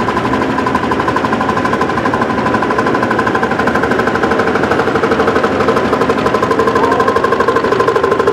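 Vintage tractor engine exhausting through a tall vertical stack, a rapid, even chain of exhaust beats at about five or six a second as it drives slowly forward, getting a little louder as it approaches.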